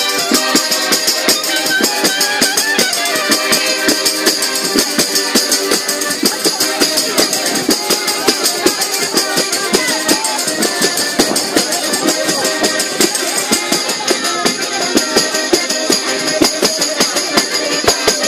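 Lively music with a fast, steady percussion beat and a jingling rattle on top, playing for a ring dance.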